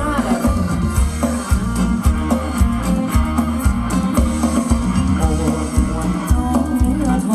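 Live band playing Thai ramwong dance music, with a heavy steady beat.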